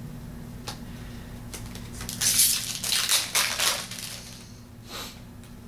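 Foil trading-card pack wrapper being torn open and crumpled, a dense crackling that lasts about two seconds in the middle, with a few light clicks of cards being handled before and after.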